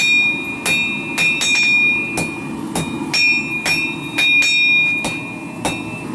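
Hammer blows on hot steel over an anvil, shaping the tip of a knife forged from a ball-bearing race: sharp strikes about two a second, each with a bright ringing note from the anvil, over the steady rumble of the forge.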